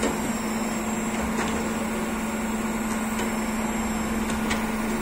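Truck tyre-changer machine running with a steady, even hum, with a few light clicks.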